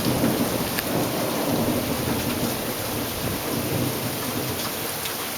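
Rain falling steadily under a low rolling rumble of thunder that slowly fades.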